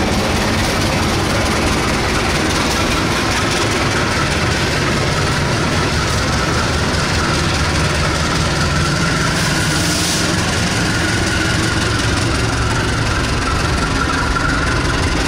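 CC 204 diesel-electric locomotive hauling a container freight train past at close range: its engine runs steadily while the wheels of the container flatcars rumble over the rails, with a thin high whine building in the second half.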